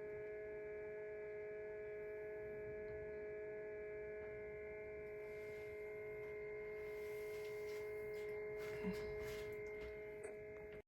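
Steady electrical hum made of several fixed tones, with a few faint clicks near the end; the sound cuts off suddenly at the end.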